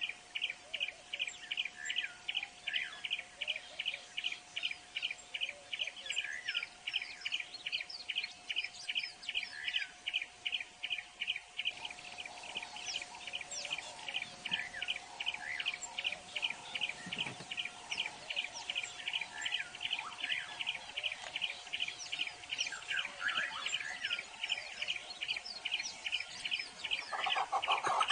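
Birdsong ambience: a high chirp repeated very regularly, about three to four times a second, with other birds chirping over it and a faint steady tone beneath. Near the end a louder, different call comes in.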